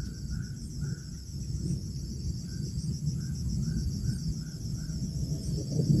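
Insects chirping in a steady, fast, high-pitched pulsing trill, with a dozen or so soft short notes lower down and a low rumble underneath.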